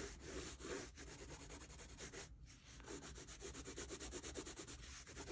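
A tinted water-soluble graphite pencil scribbling on watercolour paper, a faint dry scratching in quick back-and-forth strokes with a brief pause about two seconds in.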